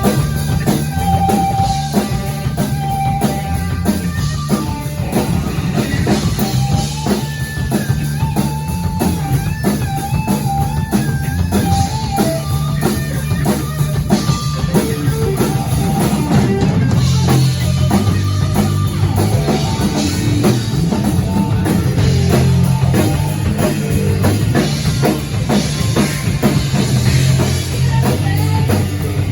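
Rock music: a drum kit with bass drum keeps a steady beat under guitar and a low, stepping bass line, with a lead line that bends and wavers in pitch in the middle.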